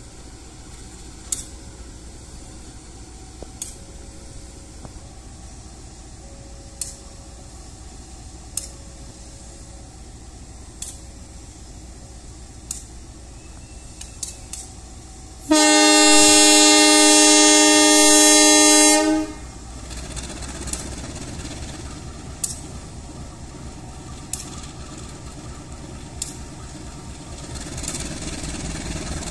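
CC201 diesel-electric locomotive sounding one long horn blast of about three and a half seconds, a little past the middle. Before it there are faint ticks about every two seconds over a low rumble. After it the locomotive's engine rumble grows louder as it pulls its train out, starting up a climb.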